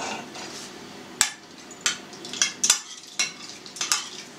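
Ladle stirring garlic brine in a stainless-steel pot, with about six sharp clinks of the ladle against the pot from about a second in.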